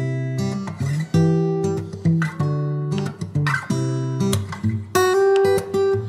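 Background music on acoustic guitar: plucked and strummed chords, each note ringing out and fading before the next.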